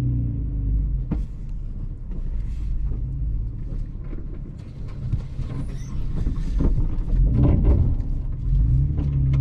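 Toyota FJ Cruiser's V6 engine and body heard from inside the cabin while crawling over a rough off-road trail: a low rumble with frequent knocks and creaks as the truck bumps over rocks and ruts. The steady engine hum drops away about half a second in and comes back near the end.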